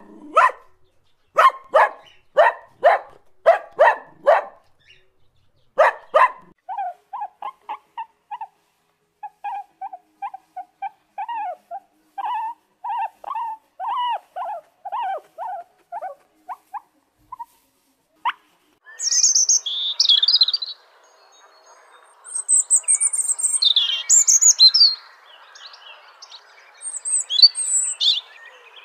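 A puppy yapping, about eight short sharp barks over the first six seconds. Then a rat squeaking in short, high, rapid squeaks for about ten seconds. From about 19 seconds in, birds chirping over a steady background hiss.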